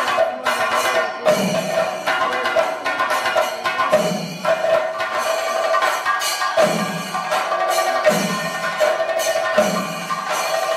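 Chenda drums in a thayambaka ensemble, struck in dense, rapid stick rolls with deeper booms about every second and a half. Elathalam hand cymbals keep a steady ringing beneath the drums.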